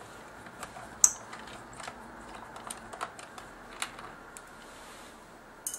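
Scattered small plastic clicks and taps as hands prise a cable holder off a Sony HVR-Z5 camcorder's body. The sharpest click comes about a second in, with another near the end.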